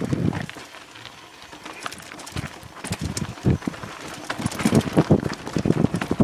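Downhill mountain bike rattling and clattering over a rocky trail, tyres crunching on stones and gravel with a quick run of knocks at each bump. The knocks come thicker and louder about four and a half seconds in.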